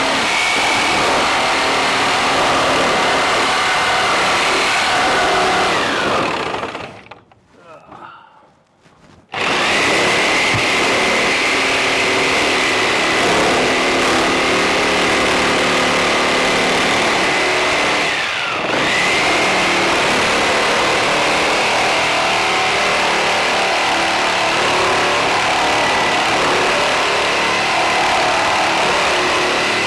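Power saw running at full speed as it cuts along a line through wooden lap siding. About six seconds in it winds down and stops, starts again abruptly about three seconds later and comes back up to speed, and its pitch sags briefly about eighteen seconds in.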